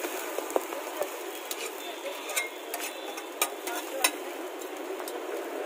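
A metal spatula scraping and tapping on a flat iron dosa griddle, making a handful of sharp clicks, the loudest about three and a half and four seconds in, over a steady sizzling hiss.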